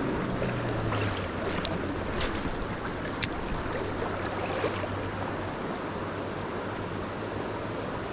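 Steady rush of flowing river water, with a few sharp clicks in the first few seconds.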